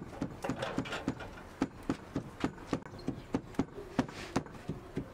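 Cleaver chopping vegetables on a wooden board: a steady run of sharp knocks, about three to four a second.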